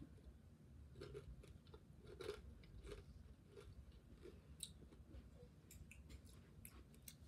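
Faint chewing of a crunchy tortilla chip: a scatter of small, irregular crisp crunches.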